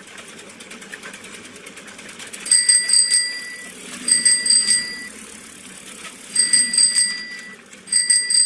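Bicycle bell ringing in four short bursts, each of quick repeated strikes, starting about two and a half seconds in. Under it runs a fast, steady ticking of a bicycle freewheel.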